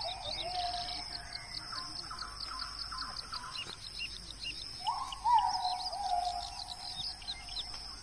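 Birds calling over a steady high insect drone: many quick, sharp chirps, and a longer call that steps down in pitch about five seconds in.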